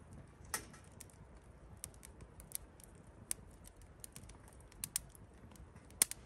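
Firewood burning in a wood grill, crackling faintly with scattered sharp pops, the loudest about half a second in and just before the end.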